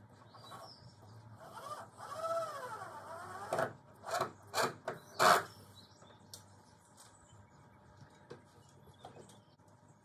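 Cordless drill-driver heard from a distance, worked on the screws of a pergola bracket: a motor whine that rises and falls in pitch as the trigger is squeezed, then four short bursts.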